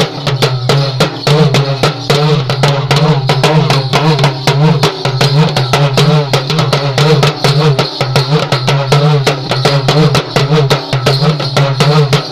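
Folk dance drumming: a small hand drum beaten with a stick in a fast, even rhythm, with a wavering, bending pitched tone over the beats.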